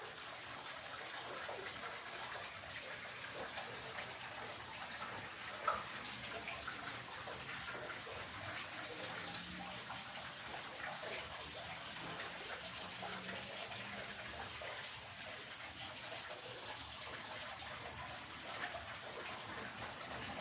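Running water flowing steadily, a continuous babbling with many small splashes, with one sharp click a little under six seconds in.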